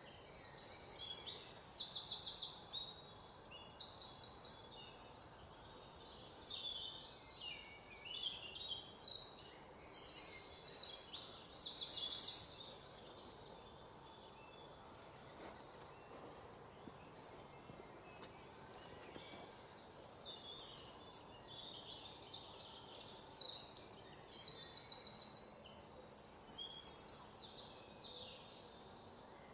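Songbirds singing in high-pitched, rapid trilling phrases, in three bouts of several seconds each with a quieter stretch of scattered faint calls between them.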